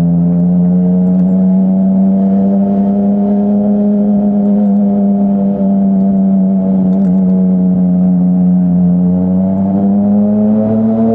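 2017 Yamaha Tracer 900's inline-three engine running through a Dominator HP3 full-system exhaust, holding steady revs under way. Its pitch creeps up near the end as the bike picks up speed.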